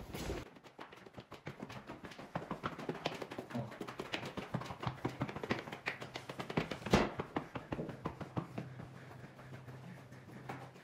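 Footsteps on a staircase and a hard tiled corridor floor: a run of irregular light taps, one louder step about seven seconds in, over a steady low hum.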